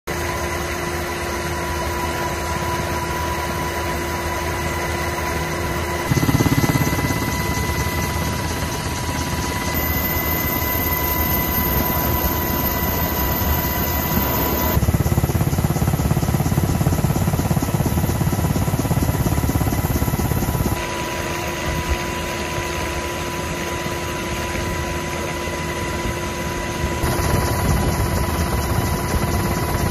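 Steady helicopter engine and rotor drone with a constant high-pitched hum, the noise of the aircraft filming from the air. Its level and tone change abruptly five times.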